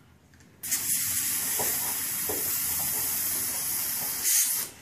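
Pressurised airsoft gas hissing steadily out of an upturned can of Magnum Power gas as it charges a Tokyo Marui M870 airsoft shotgun. The hiss starts about half a second in and cuts off just before the end.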